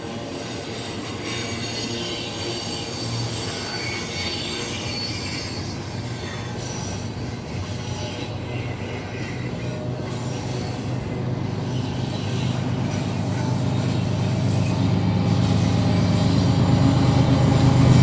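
BNSF double-stack intermodal train rolling past, the well cars' wheels making a steady rumble on the rail. The drone of the diesel distributed-power locomotives at the rear grows louder over the last few seconds as they approach.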